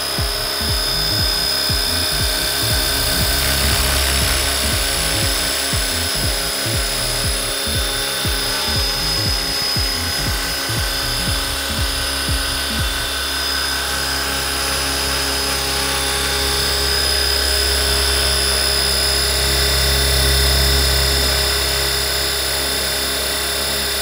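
Radio-controlled scale Huey helicopter hovering close by: a steady whine from the drive and rotors over a low rotor drone. The drone is uneven for about the first half and then settles, swelling slightly later.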